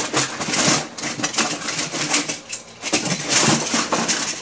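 Hands rummaging through a pile of hard plastic toy train-set pieces, which clatter and click against one another in a busy run with a few louder bursts.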